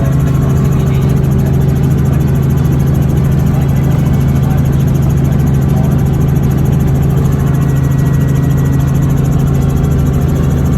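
Helicopter in flight: a loud, steady drone of engine and rotor.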